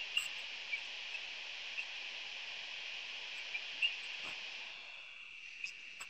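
Faint, steady hiss of an open microphone on a web-conference audio line, with a few soft clicks scattered through it.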